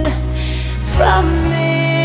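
Background music: a slow, tender piece with long held notes over a steady bass line that changes note about every second.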